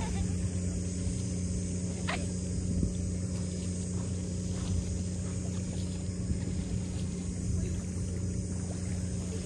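A motor or engine running steadily with a low, even hum.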